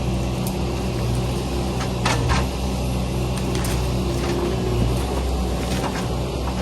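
Truck engine running steadily while driving, with a few short knocks and rattles, the loudest about two seconds in.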